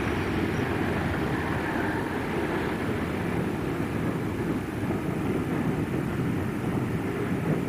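Passenger train hauled by a Class 31 diesel locomotive passing close by: a steady rumble of the locomotive's diesel engine and of the coaches rolling along the track.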